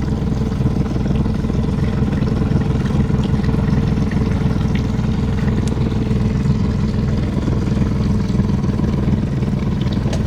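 Outboard motor of a small Mako boat running steadily, a low even engine hum with no change in speed.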